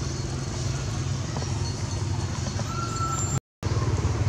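Steady low rumble of an engine running at idle, cut off completely for a moment about three and a half seconds in.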